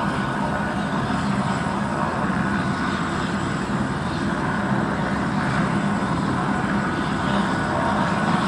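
Airbus H125 (AS350 B2) helicopter running on the ground before lift-off. Its Turbomeca Arriel 1D1 turboshaft and spinning main and tail rotors make a steady sound, with a thin high whine above, growing a little louder near the end.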